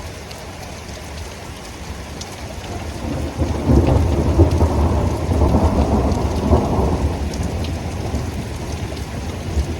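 Heavy rain pouring steadily, with a long rumble of thunder that builds about three seconds in, stays loudest for a few seconds, then slowly fades.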